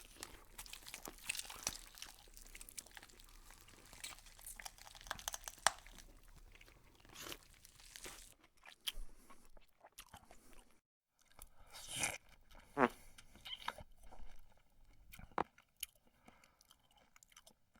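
Dubbed comedy sound effects of chewing and crunching: a dense run of crackly bites and munching for about eight seconds, then after a brief break scattered munching and a short sound that falls in pitch.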